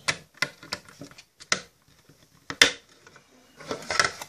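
Sharp clicks and knocks from handling a plastic Play-Doh toy machine and its parts, with the loudest knock about two and a half seconds in and a quick cluster of clicks near the end.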